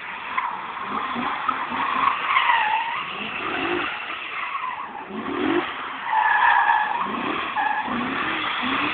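Drift car sliding sideways with its tyres squealing and its engine revving up and down. The squeal wavers in pitch and is loudest about two and a half seconds in and again around six to seven seconds in.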